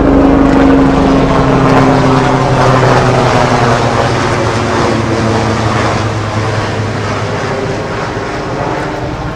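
A loud engine running close by, its pitch dropping slightly as it fades away.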